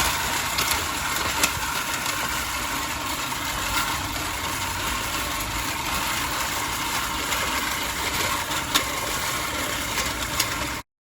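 Manual push reel lawnmower running over grass, its spinning blades whirring steadily with a few sharp clicks; the blades are dull and a little rusty. The sound cuts off abruptly near the end.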